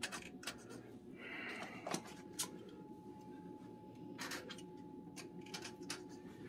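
Light clicks and handling noise from a cabin door's keycard lock and lever handle, with the rustle of a plastic sleeve. A faint steady high tone comes in about two seconds in and holds.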